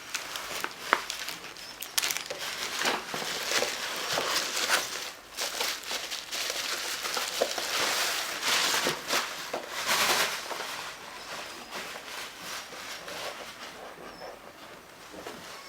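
Packaging being handled and unwrapped: irregular crinkling and rustling with small knocks, loudest about eight to ten seconds in and dying down near the end.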